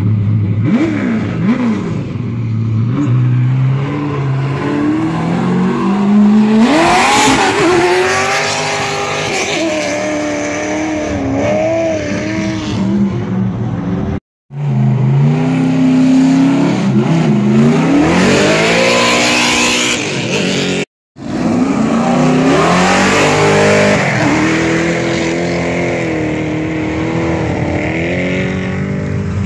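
A race car's engine idling, then revved hard and accelerating away on a dirt hill climb, its pitch climbing in steps through gear changes and wavering high as it runs on. The sound cuts off abruptly twice and picks up again with more engine revving and accelerating.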